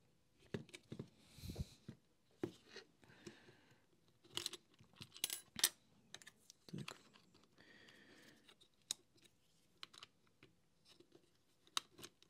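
Light plastic clicks and knocks from handling a Makita cordless heat gun's trigger switch, leaf spring and plastic handle housing during reassembly: scattered sharp clicks, with a dull knock about a second and a half in and a quick run of louder clicks around the middle.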